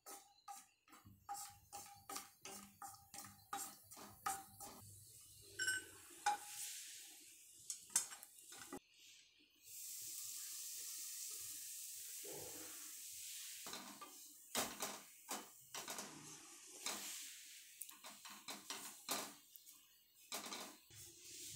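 Wooden spatula tapping and scraping in a nonstick kadai as cashew pieces are stirred in a little oil, at about three quick taps a second. About ten seconds in comes a steady hiss lasting a few seconds as ground bread is poured in, followed by more scraping and tapping as the crumbs are stirred.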